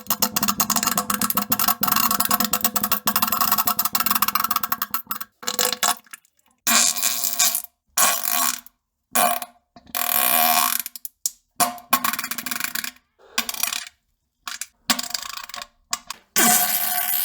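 A run of loud, sputtering farts, each a rapid crackling rattle over a low steady tone, edited one after another with short silent gaps. The first lasts about five seconds, then about ten shorter ones of around half a second to a second each follow.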